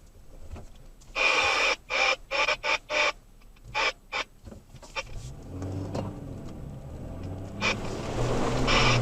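A run of short hissing bursts that cut on and off sharply for about three seconds, then the truck's engine comes up, a low pitched drone that grows steadily louder as it pulls under load.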